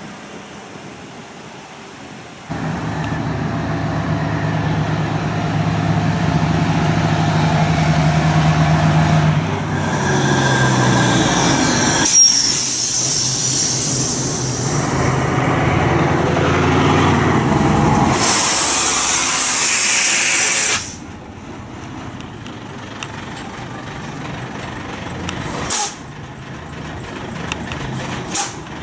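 Heavy trucks' diesel engines running close by as they move along, with a loud air hiss that cuts off suddenly about 21 seconds in, then two short, sharp air-brake releases near the end.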